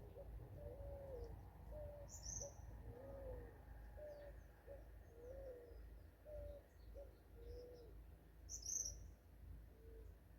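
Forest birds calling: a low, cooing call repeated about once a second, each phrase a short flat note followed by a longer arched note, growing fainter toward the end. Another bird gives two brief high chirps, about two seconds in and near the end.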